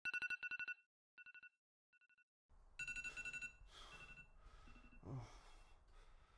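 Electronic ringing tone trilling in short bursts of rapid beeps: one loud burst, two fainter ones, then bursts repeating from about three seconds in. A man breathes out heavily about five seconds in.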